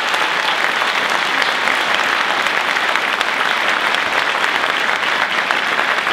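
Audience applauding steadily: a dense clapping of many hands.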